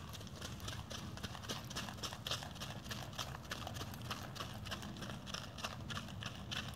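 Hooves of a ridden mule striking a gravel path at a walk: a steady run of sharp hoofbeats over a low, steady rumble.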